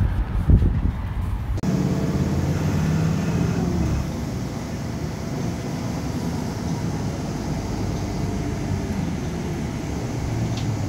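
Brief wind and handling thumps on a phone microphone, then, after an abrupt cut, the steady engine drone and road rumble of a moving bus heard from inside it.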